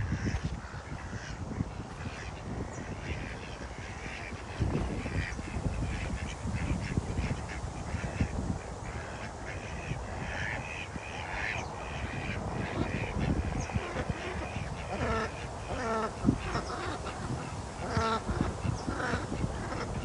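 Ducks quacking in a run of short, repeated calls, busier near the end, over a low rumble.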